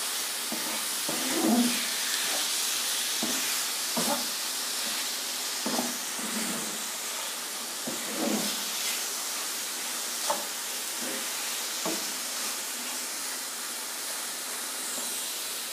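Diced chicken sizzling in oil in a non-stick frying pan, a steady hiss, while a wooden spatula stirs it, scraping and tapping against the pan every second or two.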